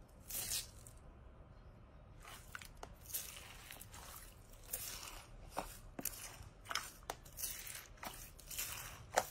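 A hand pressing and digging into clear slime topped with a thick layer of small beads, the beads crunching in short bursts about once or twice a second, with a pause about one to two seconds in.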